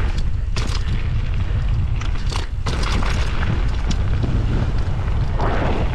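Heavy wind buffeting on the riding camera's microphone during a fast mountain-bike descent, with tyres rolling over loose gravel and several sharp knocks and rattles from the bike over the rough trail.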